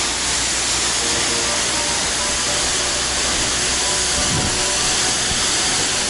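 High seasonal waterfall plunging off a cliff into a plunge pool, running full after heavy flood rain: a loud, steady, even rush of falling water.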